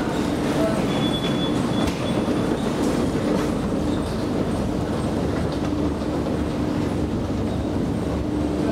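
Escalator running while carrying a rider downward: a steady mechanical rumble with a low hum that comes and goes.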